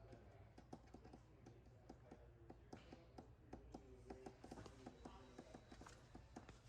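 Faint typing on a computer keyboard: many quick, irregular key clicks.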